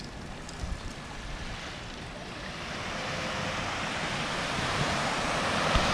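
Small waves breaking and washing on a sandy beach, with wind on the microphone; a rushing noise builds steadily louder through the second half.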